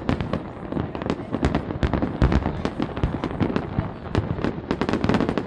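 Fireworks display: a dense run of pops and crackles from many shells bursting, mixed with deep booms, the heaviest bang a little over two seconds in.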